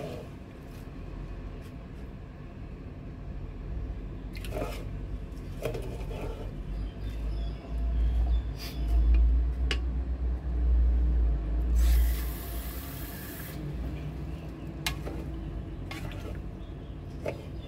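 Plastic rice paddle stirring rice in coconut milk and turmeric water inside a rice cooker's inner pot: liquid sloshing and the paddle scraping the grains, with a few light knocks. A louder low rumble runs through the middle, with a brief hiss about twelve seconds in.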